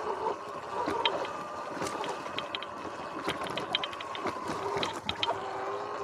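Electric dirt bike riding over a bumpy dirt trail: a steady motor whine with the chain and frame rattling and clicking over the rough ground.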